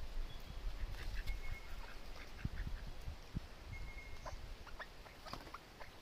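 Parrots calling: short scattered squawks and chirps, with a couple of brief held whistled notes, over a low rumble.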